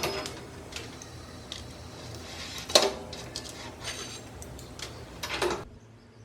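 Dishes and cutlery clinking and knocking against each other, a sharp clink about three seconds in being the loudest, with a short clatter just before the end.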